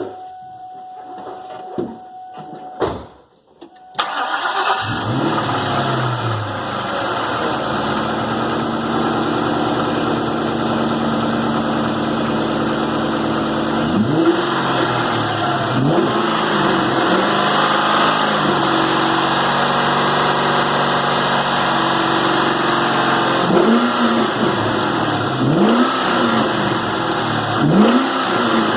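2001 Mustang Cobra 4.6-litre four-valve V8 started about four seconds in, after a steady tone and a few clicks. It settles into a fast idle and is then blipped in short revs several times. The engine is being checked for a knock that the owner hears under light load.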